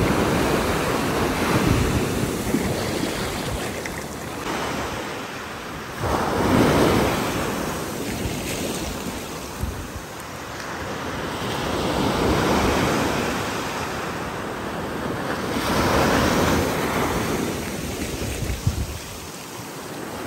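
Ocean surf breaking and washing up onto a sandy beach, swelling and ebbing several times as each wave comes in, with wind buffeting the microphone.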